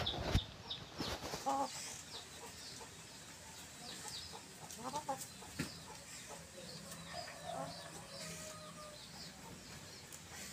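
Domestic hens clucking softly as they forage: a few short clucks, then a longer drawn-out call in the second half.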